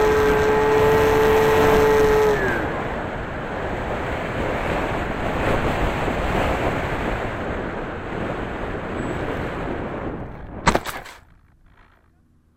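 Electric motors and propellers of an FPV aircraft whining steadily, heard through its onboard camera; about two seconds in the whine slides down in pitch and stops as the throttle is cut, leaving the rush of air over the microphone. Near the end a couple of sharp knocks as the aircraft comes down on the snowy ground.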